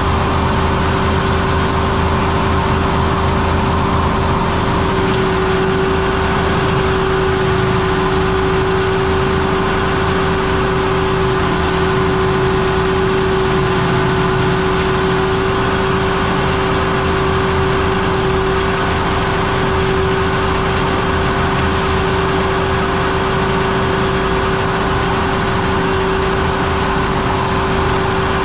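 Caterpillar 289D3 skid steer's diesel engine running steadily under a hydraulic brush-cutter mower, with a constant whine held over the engine throughout.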